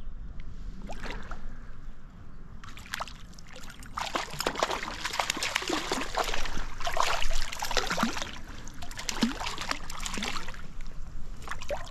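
Water splashing and sloshing from about four seconds in for some six seconds, as a hooked brown trout thrashes at the surface while being played in and landed.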